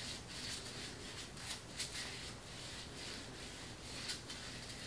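Foam sponge brush spreading Mod Podge over a paper print glued to foam core board: faint, soft brushing strokes, a few a second and irregular.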